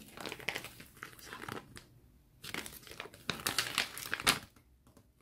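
L.O.L. Surprise toy packaging crinkling and tearing as it is handled and opened by hand. The sound comes in two stretches with a short pause about two seconds in, and stops near the end.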